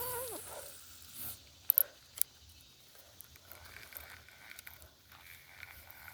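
Spinning fishing reel being cranked to retrieve a lure, a faint steady whir, with a few sharp clicks about two seconds in.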